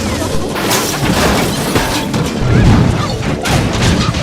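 A loud, dense run of crashing and booming sound effects, several impacts piling on one another over music, loudest a little past halfway.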